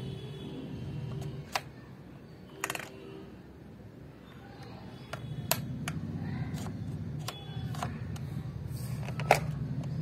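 Buttons of a plastic pencil box clicking as they are pressed: several sharp clicks at irregular intervals, the loudest near the end, over a steady low hum.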